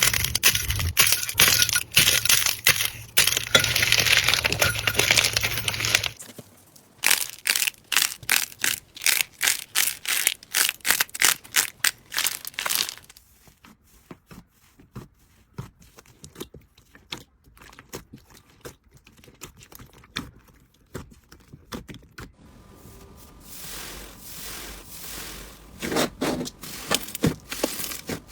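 Slime being handled: squeezed, stretched and poked, giving dense runs of sharp clicks and pops. The clicking thins out and goes quieter for a stretch in the middle, then picks up again near the end.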